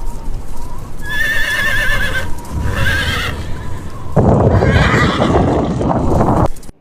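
Horse whinnying: a long quavering neigh about a second in and a shorter one around three seconds, followed by a louder, rough, noisy stretch that cuts off suddenly near the end.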